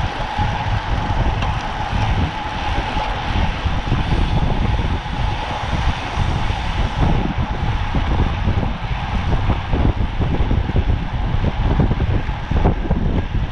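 Wind rushing and buffeting over the microphone of a racing cyclist's camera at speed, a steady loud rush with heavy low rumble.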